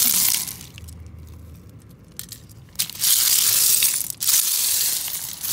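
Broken shells and beach pebbles crunching and rattling as a hand digs through them: a short spell at the start, then a longer, louder one from about three seconds in.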